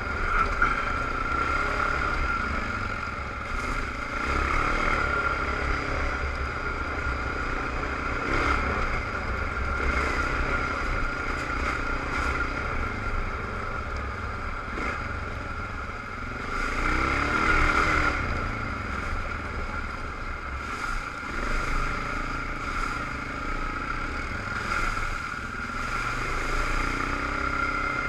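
Suzuki ATV engine heard from on board while riding, its pitch rising and falling with the throttle and loudest in a surge a little past halfway. A steady high whine runs alongside, with scattered rattles and knocks over the bumps.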